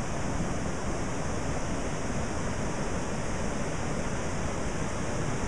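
Steady rushing of floodwater through a creek swollen over its banks.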